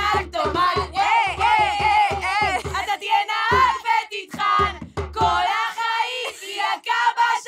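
A group of young women singing a song together over a steady darbuka beat. The drumming stops about five and a half seconds in while the singing carries on.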